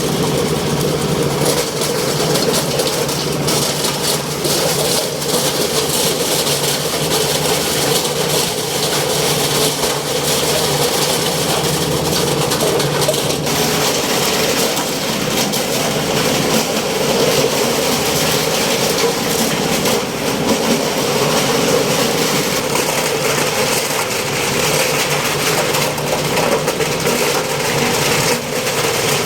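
Plastic bottle label separator machine running steadily: a constant loud mechanical noise with a steady hum underneath.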